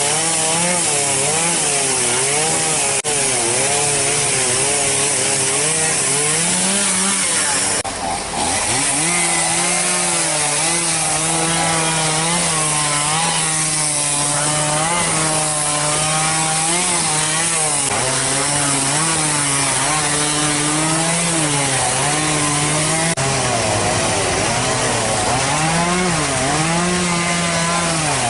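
Chainsaw running and cutting through a fallen tree, its engine pitch rising and falling repeatedly as it bites into the wood, with a brief break about eight seconds in.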